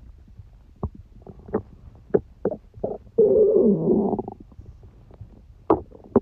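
Human stomach gurgling: a run of short pops and bubbles, with one longer, louder gurgle about three seconds in whose pitch bends down and back up.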